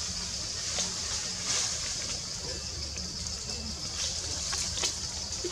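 Steady high-pitched drone of insects in tropical forest, with a low rumble underneath and a few faint ticks.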